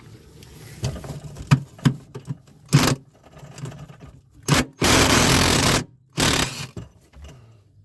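Ratchet with a 10 mm socket working a rusty mounting screw: a few separate clicks and knocks, then a burst of rapid ratcheting about five seconds in, followed by a shorter one.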